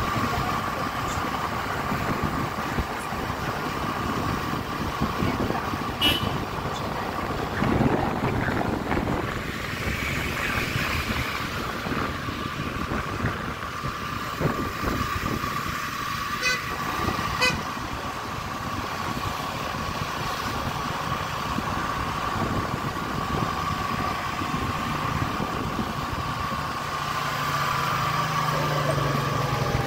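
Motor scooter on the move: its small engine runs steadily under wind and road noise, with a steady high whine throughout. The engine note changes near the end.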